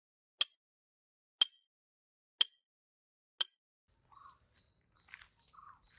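Clock-ticking sound effect: four sharp ticks exactly a second apart, with dead silence between them. Faint outdoor sounds come in near the end.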